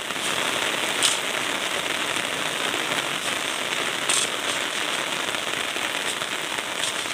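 Heavy rain falling in a dense, steady hiss, with two short sharp knocks about a second in and about four seconds in from a shovel biting into wet sand and gravel.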